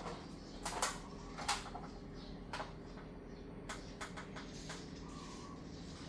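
1970s SMC 56-inch industrial ceiling fan motor running with a steady low hum of several pitches. Irregular sharp clicks and knocks sound over it, loudest about a second and a second and a half in.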